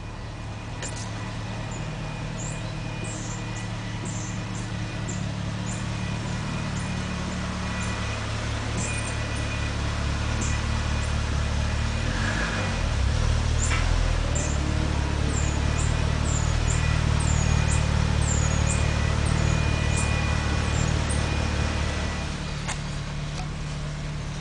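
BMW 545 car in motion: a low steady drone that grows louder through the middle and eases off near the end, with a faint steady high whine and short high chirps over it.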